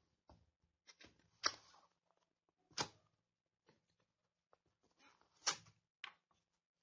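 Four short scrapes and taps of a thin cardboard retail box being handled and its end flap worked open by fingers, with near silence between them.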